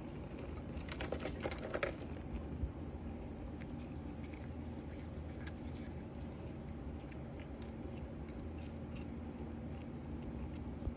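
A cat biting and chewing on a catnip stick: a quick flurry of small crunching clicks about a second in, then scattered single clicks.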